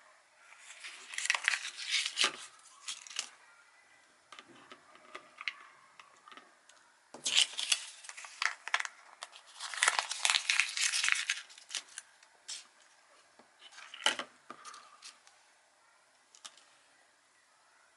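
Paper crumpling and tearing in several bursts of crackling with short pauses between them: a paper nosework toy with dog treats wrapped inside being scrunched or torn open.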